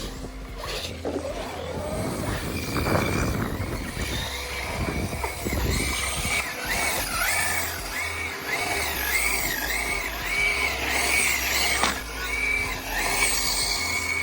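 Background music with a stepped bass line and a high, wavering melody that rises and falls in repeated arcs.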